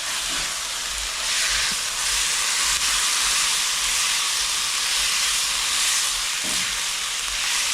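Curry leaves and chicken sizzling in hot oil in a cooking pot: a steady, loud frying hiss that swells about a second in as the leaves hit the oil.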